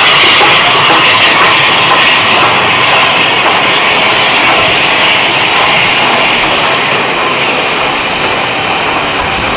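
Train running past, a loud steady rush of wheel and rail noise that slowly eases.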